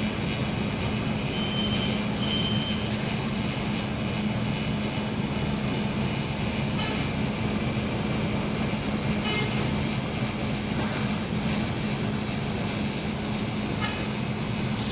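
Ambience of a large outdoor crowd holding a silence: a steady low hum and rumble with a faint even hiss, and a few faint brief noises from the crowd.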